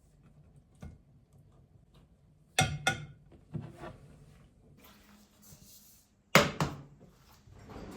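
Kitchen handling sounds: a few sharp knocks and clatters of objects being set down or moved. The loudest are a double knock about two and a half seconds in and another about six and a half seconds in.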